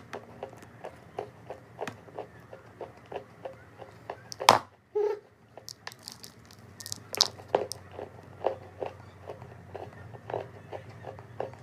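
Chalk being bitten and chewed close to the microphone: a steady run of crunches about three a second, with one loud, sharp bite near the middle, a brief pause, then the crunching starts again.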